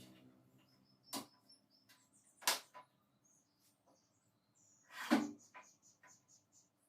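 Three separate sharp knocks or clacks of parts being handled, about a second, two and a half and five seconds in, the last the loudest, with faint small clicks between.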